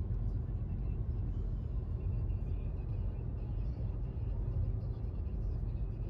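Steady low rumble of road and engine noise inside a car cruising at highway speed.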